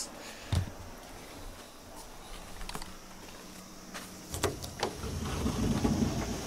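A wooden door being handled: a few light knocks, then a low rubbing rumble from a little past the middle. A faint steady hum from a running air conditioner lies underneath.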